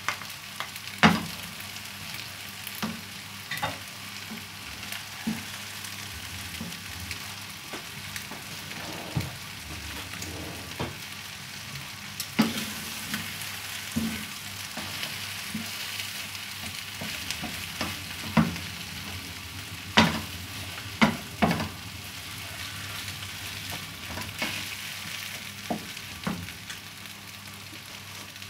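Food sizzling in a frying pan while a wooden spatula stirs it. About a dozen sharp knocks of the spatula against the pan sound through it, the loudest about a second in and a cluster of three around twenty seconds in.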